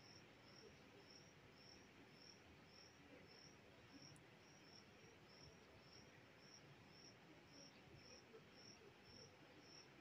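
Near silence, with an insect chirping faintly: a short high chirp repeated evenly a little over twice a second.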